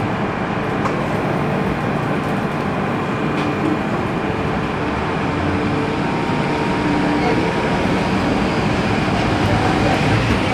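MTR M-Train electric multiple unit heard from inside the car while running: a steady rumble of the train in motion, with a faint motor tone that shifts in pitch in the second half. It grows a little louder toward the end.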